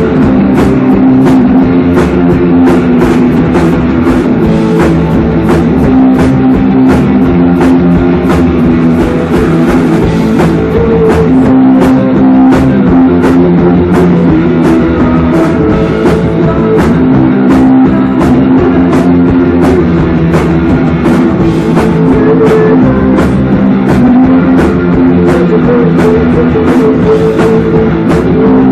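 Live rock band playing an instrumental passage: electric guitar over a drum kit, with cymbal hits at a steady rhythm throughout.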